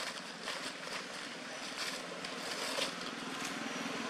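A motor runs steadily in the background as a low even hum, with short scattered rustles on top.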